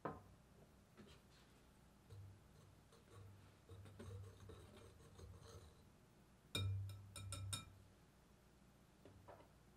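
Wire whisk stirring dry flour in a glass mixing bowl: a faint, soft scuffing through the flour, then a quick run of sharp clicks of the whisk against the glass about two-thirds of the way through.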